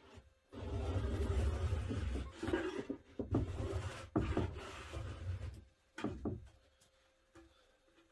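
Virutex double edge trimmer scraping along a board edge as it shaves off the overhang of iron-on veneer edging tape: several long rasping passes over about five seconds, then one short pass about six seconds in.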